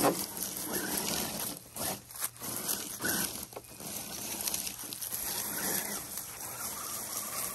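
A 1:10 scale RC crawler pushing through dry brush: a steady rustle of leaves and twigs, with a few sharper snaps in the first half.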